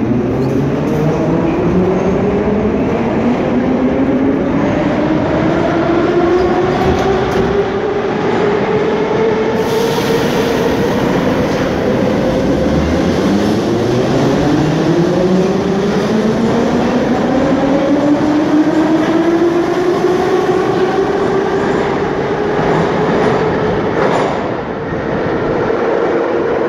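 Metro train pulling out of the station. Its motors whine over the rumble and clatter of the wheels on the rails, and the whine rises steadily in pitch twice, the second rise beginning about halfway through.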